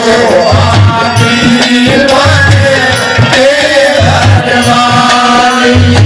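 Haryanvi ragni folk music played live through a PA: a hand drum beats a repeating rhythm under a melody line that bends up and down.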